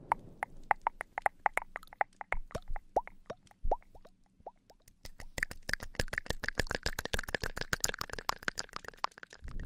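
Close-up ASMR mouth sounds: a run of wet tongue clicks and pops, several of them dropping in pitch, about four or five a second, turning into faster, denser clicking about five seconds in.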